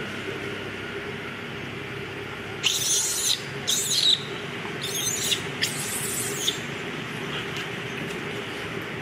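Thin plastic bag crinkling and rustling in several short bursts, about three to four seconds in and again from five to six and a half seconds, as a young macaque handles it, over a steady low background hum.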